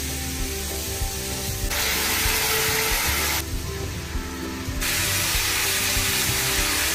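Food sizzling in a hot wok as it is stir-fried with a spatula, over background music. The sizzle comes in two louder stretches that start and stop abruptly, one about two seconds in and one from about five seconds on.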